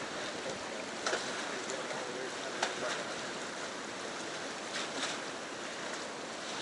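Steady rush of flowing stream water, with a few brief sharp sounds about one, two and a half and five seconds in.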